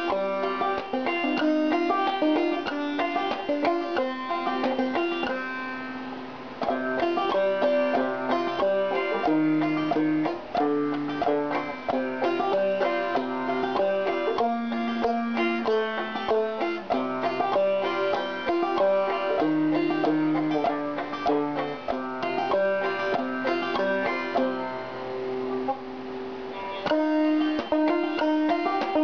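Background banjo music, fast picked bluegrass-style notes.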